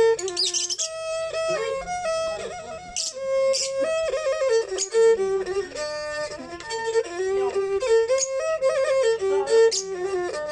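Thai fiddles (so) bowing a mahori melody together, with sliding notes between held pitches and a few short bright scratchy accents.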